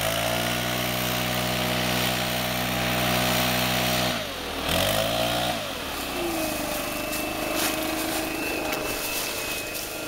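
A STIHL BR 600 backpack blower's 4-MIX engine runs at full throttle, blasting air at the burning leaf litter, then drops to idle about four seconds in. It revs up briefly once more and settles back to a steady idle.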